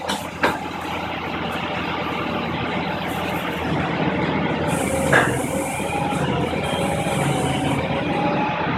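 A heavy vehicle's engine running steadily, with a burst of air hiss about five seconds in that lasts for roughly three seconds.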